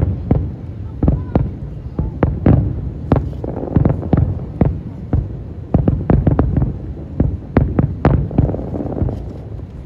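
Fireworks going off in quick succession: sharp bangs, several a second, over a steady low rumble.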